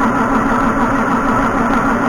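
Background music with guitar, at a steady level throughout.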